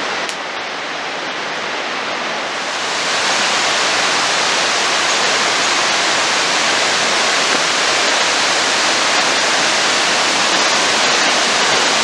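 A small waterfall rushing steadily, growing louder about three seconds in.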